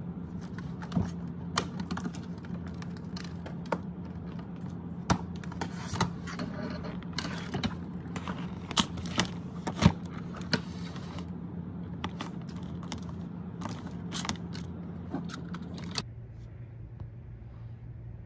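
Small objects and a cable clicking, knocking and scraping on a desk as they are handled, over a steady low hum. The clatter stops about two seconds before the end, leaving a quieter hum.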